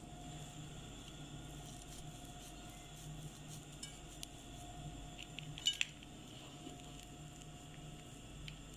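Garlic bread handled and torn on a ceramic plate: faint scattered clicks, with a short cluster of crisp clicks a little past the middle, over a steady low hum.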